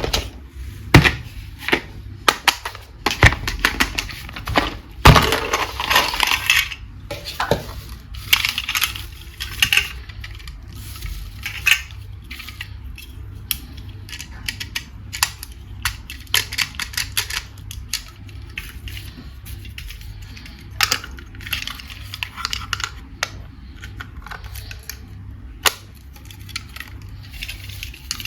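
Hard plastic toys and packaging handled close up: irregular clicks and taps, with a burst of crinkling around five to seven seconds in.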